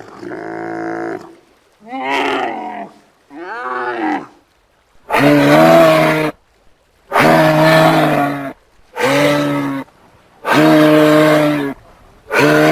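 Giraffe calling repeatedly: a few short calls that waver in pitch, then a run of five long, steady-pitched calls about a second each, roughly two seconds apart.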